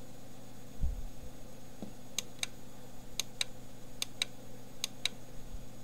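Pairs of sharp plastic clicks roughly once a second, a finger pressing and releasing a button on a plug-in digital energy meter to step through its readings. A steady low electrical hum runs underneath, with one soft thump about a second in.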